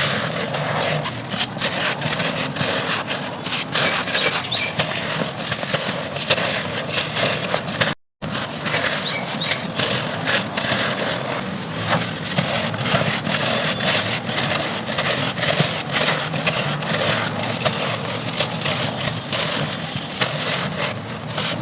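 Dry red dirt chunks being crumbled: continuous dense crunching and crackling, made of many small crisp clicks. It cuts out for a moment about eight seconds in.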